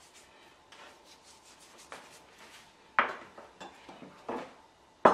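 Sea salt sprinkled by hand over a metal sheet pan of cut tomatoes: faint scattered ticks of crystals landing, with one sharper knock about three seconds in.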